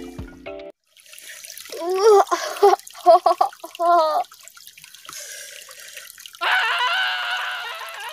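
A boy straining and grunting as he defecates: a run of short strained grunts, then one longer, louder strained sound near the end. A stream trickles in the background.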